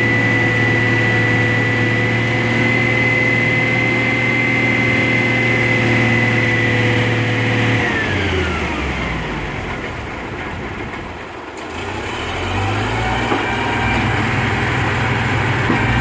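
Heavy truck diesel engine running at steady high revs, then winding down a little past halfway and revving back up to steady running near the end.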